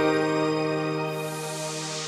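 Soft instrumental background music: a held chord slowly fading, with a hissing swell coming in during the second half.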